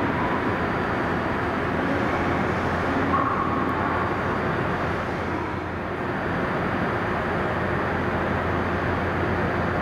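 Keisei electric train moving along the station platform: a steady running noise of wheels and motors, with a faint whine about three seconds in.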